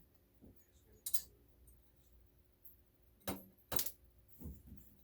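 A few light, sharp clicks and clinks of small hard objects being handled during assembly: one about a second in, two close together past the middle, and a softer one near the end.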